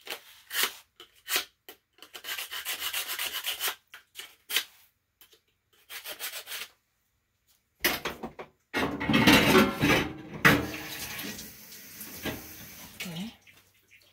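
Kitchen knife being sharpened: the steel blade is drawn against a sharpener in short rasping strokes, a few single ones and then quicker runs. About eight seconds in comes a louder, longer stretch of rasping noise lasting several seconds.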